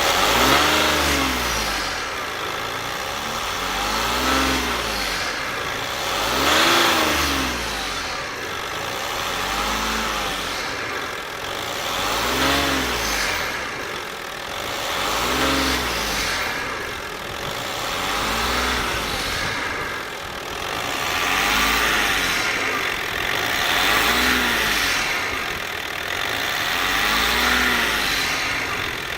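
Audi A6 C5 engine revved again and again, each rev rising and falling back in pitch about every three seconds. It is being run to show an unusual noise of unknown cause.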